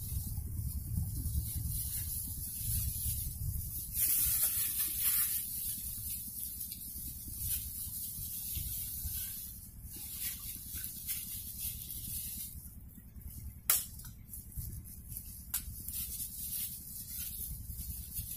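A steady high hiss over a low rumble, broken by rustling and scattered short clicks as a man handles a cloth bag and fishing gear on wet mud. One sharp, loud click comes about 14 seconds in.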